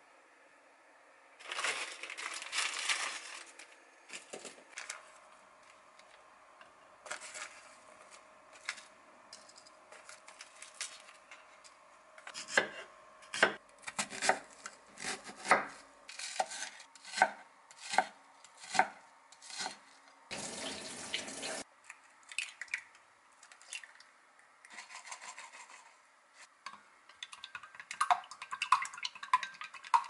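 Kitchen sounds of cooking by hand. A kitchen knife chops an onion on a wooden cutting board in steady strokes, a bit more than one a second, with a brief rush of noise soon after. Near the end, wooden chopsticks beat eggs in a glass measuring cup with quick clicking.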